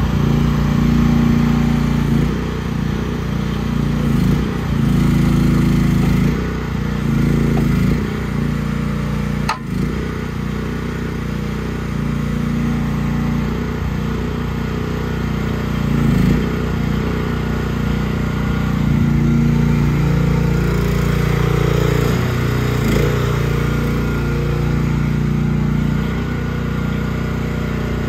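2023 AGT H12 mini excavator's Briggs & Stratton 420cc single-cylinder gas engine running steadily, its note swelling and dropping back in stretches as the boom, arm and bucket are worked hydraulically. One sharp click about ten seconds in.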